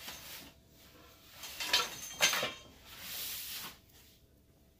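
Two sharp clacks about half a second apart, like objects being handled or set down, then a short hiss lasting under a second.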